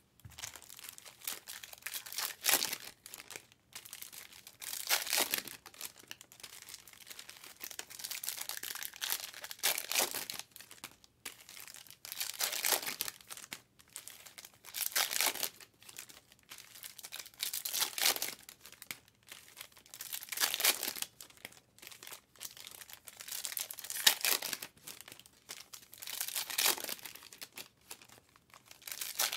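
Foil trading card pack wrappers from 2023 Topps Chrome Cosmic being torn open and crinkled one after another, a rustling burst every two to three seconds.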